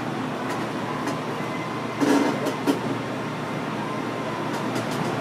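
Restaurant room noise: a steady hum with a few light clicks and a brief louder sound about two seconds in.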